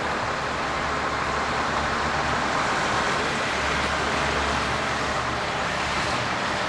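A vehicle engine running steadily under a constant noisy hiss, with no distinct knocks or impacts.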